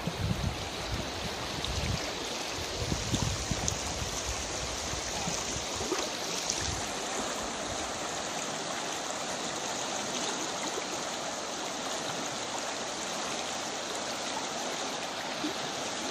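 Freestone river water rushing steadily, with a few low thumps in the first several seconds.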